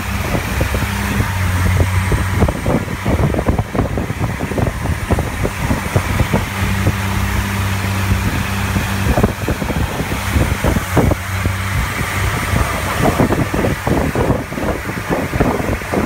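Motorboat engine running steadily at speed, a low hum under wind buffeting the microphone and water rushing and splashing past the hull.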